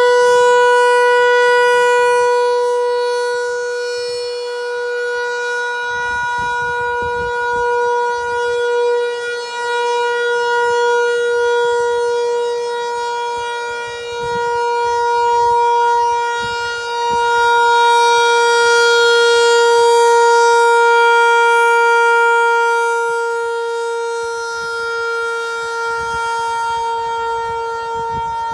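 ASC RM-130 outdoor warning siren sounding a steady, unchanging-pitch tone for the monthly three-minute test. The loudness swells and fades every nine or ten seconds.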